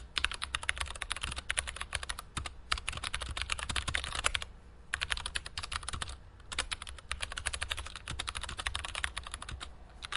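Computer keyboard typing: a fast, continuous run of keystrokes, broken by short pauses about two seconds in, about four and a half seconds in and about six seconds in.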